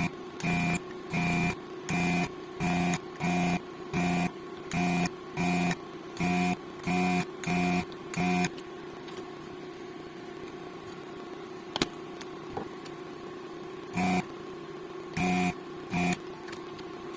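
Amiga 500 floppy disk drive buzzing in short, even bursts, about one and a half a second, as the drive mechanism steps over and over. The bursts stop about 8.5 seconds in, leaving a steady hum and a single sharp click, then come back three times near the end.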